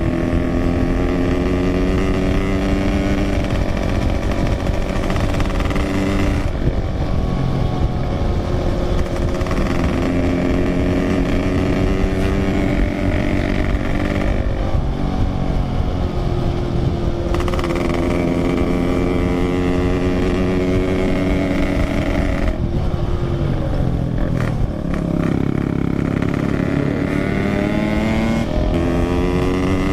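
Yamaha RX-King 135cc two-stroke single-cylinder motorcycle engine running under way, its revs rising and falling with several drops in pitch between gears, over a steady low rush of road noise.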